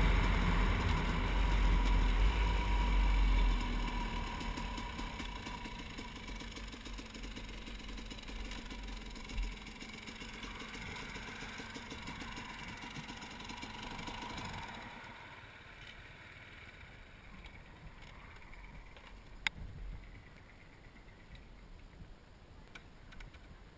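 KTM 300 EXC two-stroke dirt bike engine running with wind noise on the camera mic as the bike rides and slows to a stop. The sound fades over the first few seconds, drops to a low level about two-thirds of the way through, and a single sharp click comes near the end.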